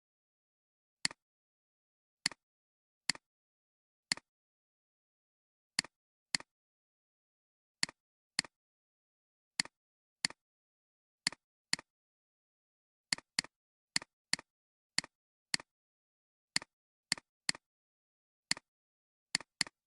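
Computer mouse clicks: sharp single clicks at an irregular pace, about one or two a second, some close together in pairs, with dead silence between.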